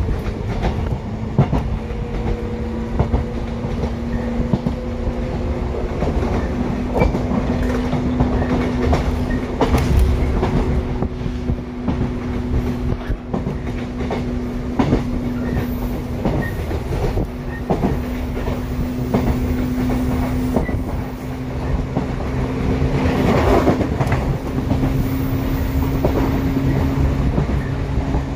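Shinano Railway 115 series electric train running, heard from inside the KuMoHa 115-1067 motor car with the window open. A steady low traction-motor hum rises slightly in pitch, and the wheels clack over rail joints. About 23 seconds in there is a brief louder rush of noise.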